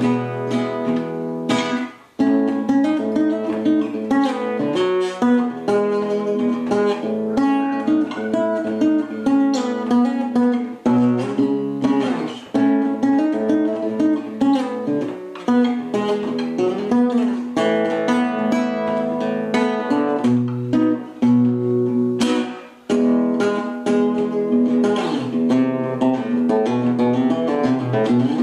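Solo classical guitar played fingerstyle: a busy run of plucked notes mixed with quick strums. It is broken by a few short pauses, the clearest about two seconds in and again near the end.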